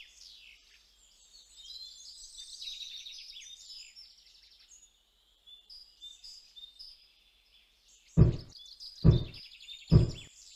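Birds chirping faintly, then three knocks on a wooden door about a second apart.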